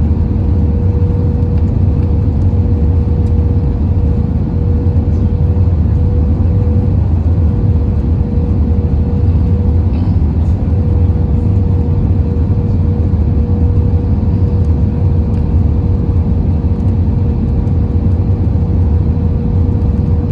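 Steady cabin noise inside an Airbus A320 airliner descending toward landing: a loud, even low rumble of engines and airflow with a thin steady tone running through it.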